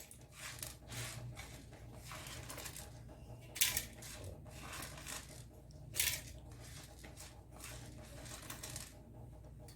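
Whole spices, black peppercorns among them, dropping into a steel mixer-grinder jar as faint scattered small clicks and rattles, with two louder clacks about three and a half and six seconds in.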